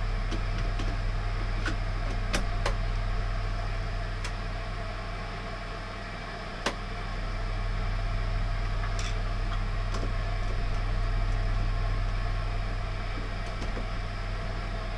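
Steady low hum of plant-room machinery, with a handful of light clicks and taps as a circuit breaker is pushed and clipped into a fuse board; the sharpest click comes about halfway through.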